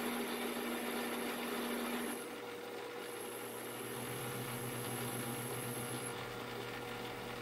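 Metal lathe running, turning down a bar of 12L14 free-machining steel on a roughing pass: a steady machine hum whose tone changes and becomes slightly quieter about two seconds in.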